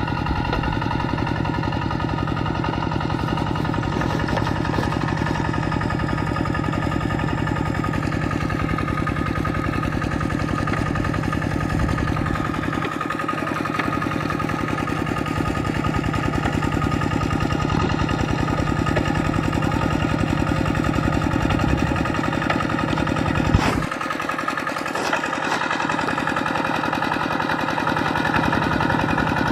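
Kubota RT120 walking tractor's single-cylinder diesel engine running steadily under load as it pulls its cage wheels through a muddy rice paddy. A single sharp knock sounds about three-quarters of the way through.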